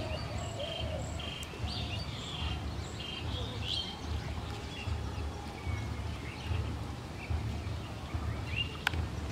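Rural pond-side ambience: small birds chirping, mostly in the first few seconds, over a steady low rumble, with one sharp click near the end.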